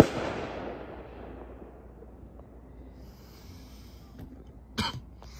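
An aerial firework shell bursting with a sharp bang that rolls away and fades over about a second. A second sharp thump comes near the end.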